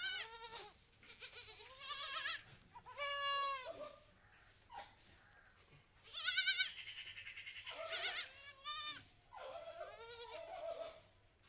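Young goat kid bleating over and over, about six wavering cries, the loudest about three and six and a half seconds in, while its blistered mouth is held and treated.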